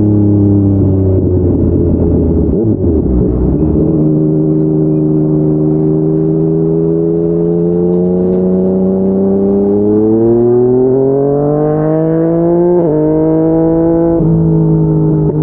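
Yamaha MT-09 three-cylinder engine through an aftermarket slip-on exhaust, ridden at a steady note after a rougher, uneven stretch a second or two in. It then accelerates with a climbing pitch, broken by two sharp drops at upshifts.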